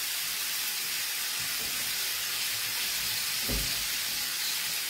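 Frying pan of cherry tomatoes and herbs sizzling steadily on the stove, with one soft knock about three and a half seconds in.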